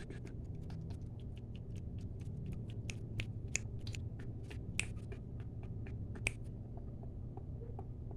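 Close-miked ASMR clicks, quick and irregular, over a steady low hum. They thin out after about six seconds.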